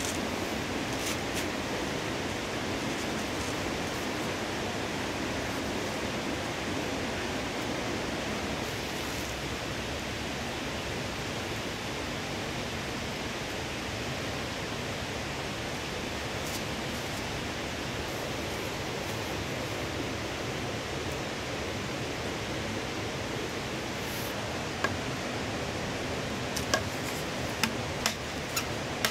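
Steady rushing of a nearby river. Near the end, a few sharp knocks of a knife blade striking green bamboo.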